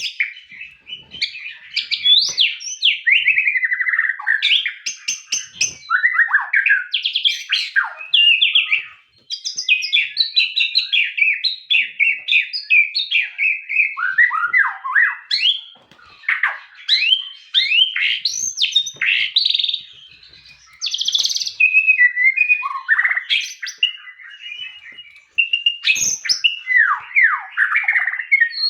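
A white-rumped shama (murai batu) singing continuously: a rich, varied song of whistled phrases, quick rising and falling notes and fast chattering trills, with a few brief pauses.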